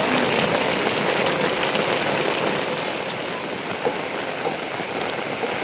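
Heavy rain falling steadily, a dense patter of drops, with one sharper drop or tap about four seconds in.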